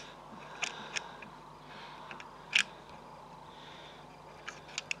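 Small clicks and scratches of fingers and a small tool working at a tiny button-cell battery pack wired to a circuit board, a few scattered clicks with one sharper click about two and a half seconds in.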